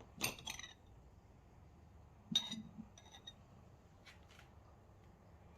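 Light knocks and clinks of small objects being handled, in two short clusters about two seconds apart, followed by a few fainter ticks.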